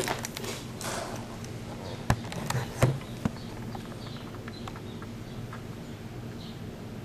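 Scattered footsteps and light knocks, with two louder thumps about two and three seconds in, over a steady low hum.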